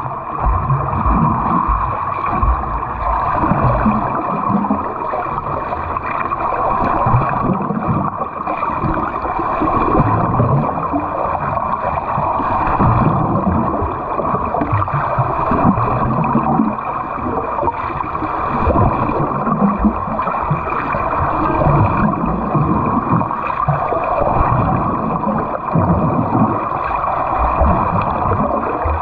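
Water churning and splashing around a swimmer doing butterfly stroke drills, with rhythmic surges roughly every one and a half seconds as the strokes come round.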